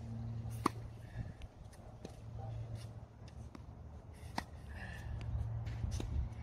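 Tennis rally on a hard court: sharp pops of a racket striking the ball, the loudest about a second in and again about four seconds in, with softer ball bounces between them, over a steady low rumble.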